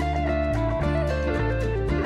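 Instrumental background music: a plucked guitar melody gliding between notes over steady bass notes and a regular beat.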